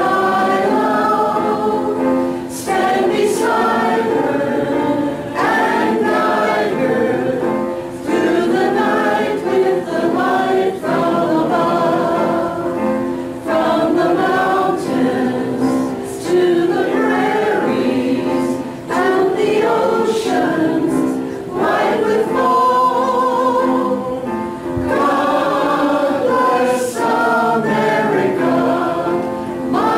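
A small congregation singing a patriotic sing-along song together, phrase after phrase with brief pauses for breath.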